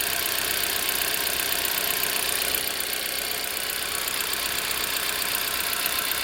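Subaru Pleo's EN07 four-cylinder engine running steadily with a fast, even ticking from a fuel injector, a noise that turned out to be a faulty injector that needed replacing.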